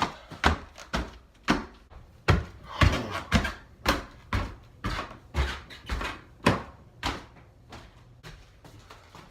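Kitchen cupboard doors banging open and shut in quick succession, about two knocks a second, then fewer and softer knocks after about seven seconds.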